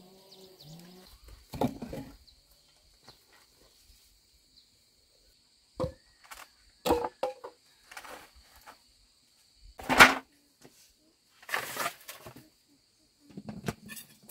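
A few scattered knocks and clatters, the loudest about ten seconds in, over a faint steady high-pitched whine.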